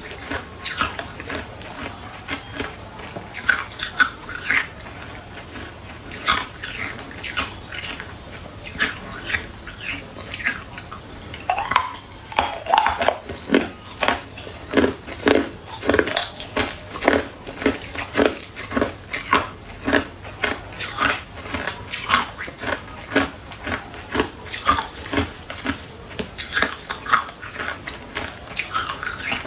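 Hard ice cubes crunched and chewed between the teeth: scattered sharp crunches at first, then a steady run of about two crunches a second from about halfway through.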